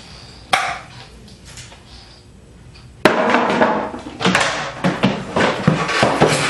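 Steel fluorescent light fixture and its parts being handled: a single sharp click about half a second in, then from about three seconds in a continuous run of irregular metal rattling and knocks.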